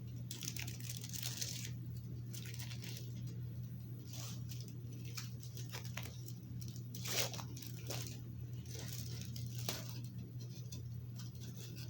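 Chocolate bar wrapper being crinkled and torn open in irregular bursts of crackling, over a steady low hum.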